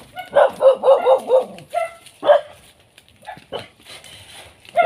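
A dog barking: a quick run of yapping barks, then two single barks about two seconds in.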